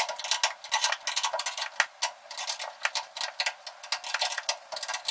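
Rapid, irregular metallic clicking from a hand tool as a nut is done up on a rock-slider mounting bolt through the chassis rail.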